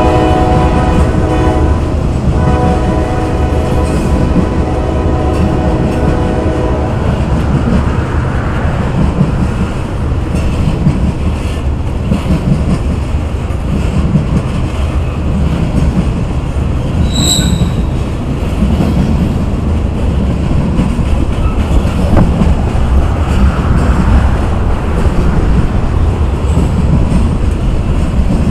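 Loaded coal hopper cars of a freight train rolling steadily past, a constant low rumble with wheel clatter. For the first seven seconds a locomotive horn sounds a chord, in two blasts; about 17 seconds in comes one short high squeak.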